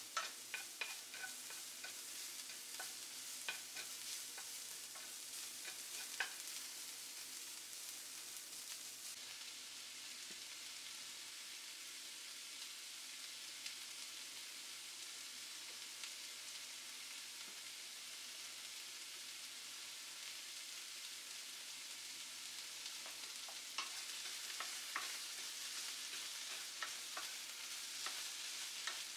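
Vegetables sizzling over medium heat in a nonstick frying pan: diced onion at first, then sliced cucumber and orange pepper. A wooden spatula stirs and scrapes, clicking against the pan in the first few seconds and again near the end.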